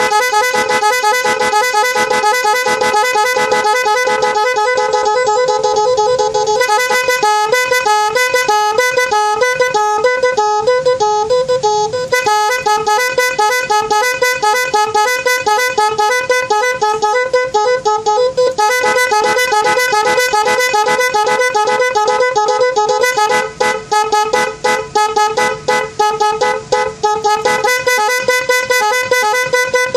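Snail-type electric vehicle horn with multiple programmed tones, sounding continuously through several of its modes. It gives a steady buzzing blare, then from about seven seconds in a fast warble between two pitches, and later a run of quick stuttering blasts.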